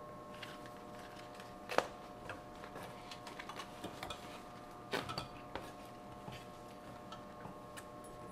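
Paperboard ice cream carton being opened by hand: scattered small clicks and scrapes of the cardboard flaps, with a sharper snap about two seconds in and another about five seconds in, over a steady hum.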